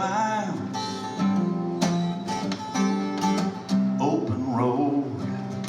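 Acoustic guitar strumming chords: the instrumental intro of a song played live.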